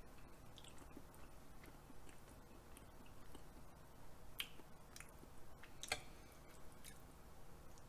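Faint handling sounds as metal chopsticks pick up raw beef tartare and press it onto a slice of raw salmon on a plate: soft wet squishes and scattered light clicks, two sharper clicks about four and a half and six seconds in.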